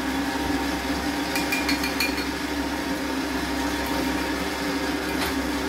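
Electric stand mixer motor running steadily on low, beating cake batter, with a few light clinks of a fork against a bowl about a second and a half in and again near the end.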